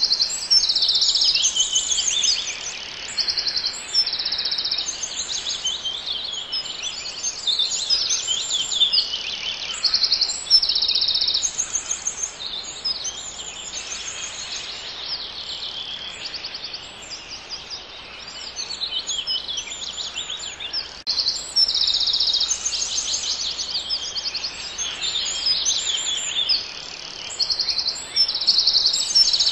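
Chorus of songbirds, many high chirps and rapid trills overlapping without a break, over a faint steady hiss.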